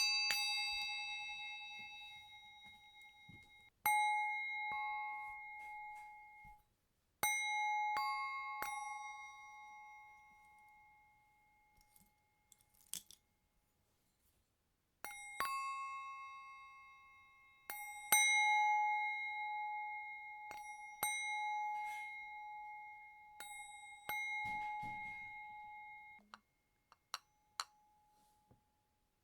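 Metal bowl bell struck by hand about eight times at uneven intervals, each strike ringing with a clear, lingering tone that fades over several seconds. Strikes sometimes come before the last one has died away, and there are a few light clinks and taps between them.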